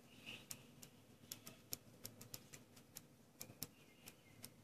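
Faint, irregular clicks and light ticking of a ballpoint pen writing on a sheet of paper.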